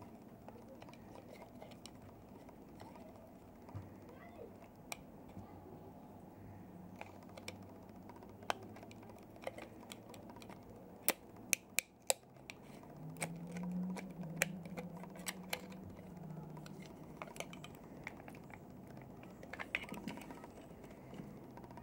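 Scattered small clicks and taps as a glo Hyper X2 heated tobacco device is handled and pried apart, with a quick run of sharper clicks about halfway through. A low hum follows for a few seconds.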